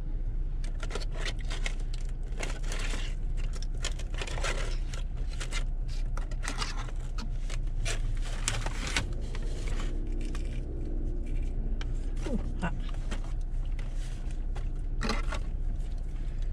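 Takeout food packaging rustling, crinkling and scraping in irregular bursts over a steady low hum in a parked car.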